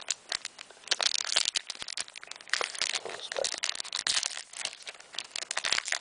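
Wrapper of a trading-card booster pack being torn open and crinkled by hand: quick, irregular runs of crackling.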